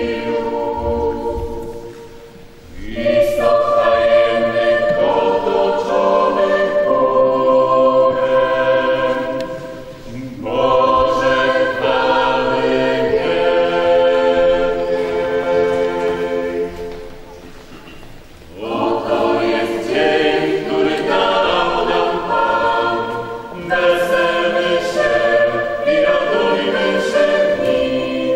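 Choir singing a hymn in long sustained phrases, with short breaths between phrases about every eight seconds, echoing in a large church.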